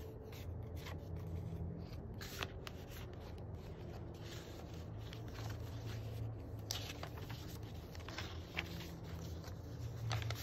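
Paper handling: thick pages of a handmade junk journal being turned and photo cards and tags slid and lifted, with irregular rustles, light scrapes and soft taps over a low steady hum.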